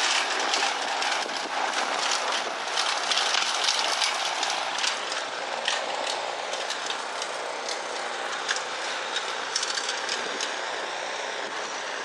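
Boots wading through deep, dry snow, crunching at irregular steps over a steady rush of noise underneath.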